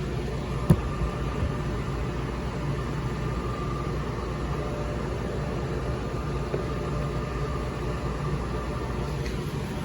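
Bard wall-mount air conditioning unit running steadily on temporary cooling: a constant hum and whoosh of compressor and fan with a faint high tone over it. A single sharp knock comes about a second in.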